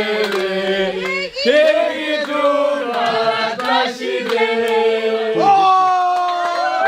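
A group of people singing together in long held notes, several voices at once. About five seconds in, the voices jump up to a higher note and hold it.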